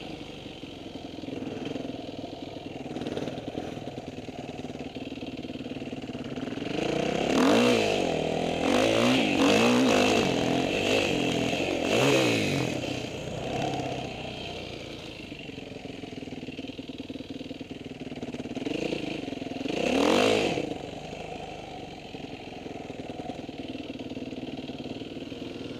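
Off-road motorcycle engine running at low revs, then revved up and down repeatedly from about 7 to 13 seconds in and once more around 20 seconds in.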